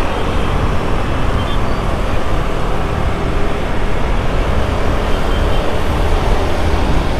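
Wind buffeting the microphone, mixed with the single-cylinder engine of a KTM Duke 200 and the surrounding traffic, as the bike rides steadily at about 40 to 50 km/h.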